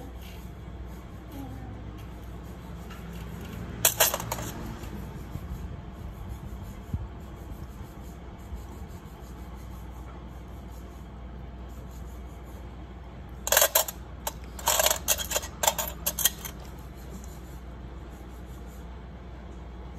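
Metal nail-care tools clinking: a short clatter about four seconds in, then a run of five or six sharp clinks a little past the middle, over a steady low hum.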